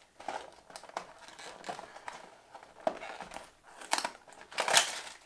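Paper gift wrapping crinkling as it is pulled off a small box by hand, in irregular crackles, the loudest two near the end.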